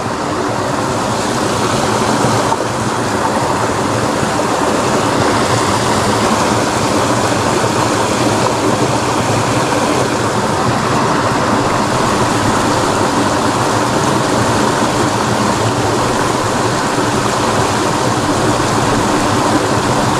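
Steady rushing of water flowing along a drainage ditch.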